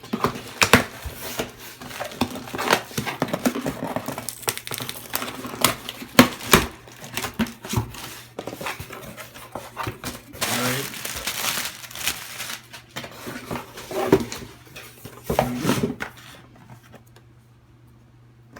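Shipping package being torn open by hand without a knife: rustling and crinkling of packaging with many sharp clicks and knocks, and a longer tearing sound about ten seconds in. The handling dies down near the end.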